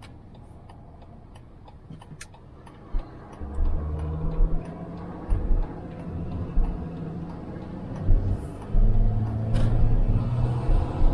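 Vehicle engine pulling away and running, rising in level from about three seconds in. Over it a light, regular ticking runs at about two to three ticks a second and fades out around the middle.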